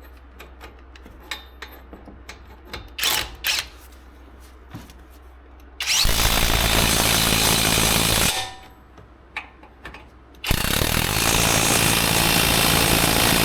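Impact wrench running in two long bursts, about two seconds and then over three seconds, tightening a nut on a freshly installed wheel bearing hub. A few short clicks come before.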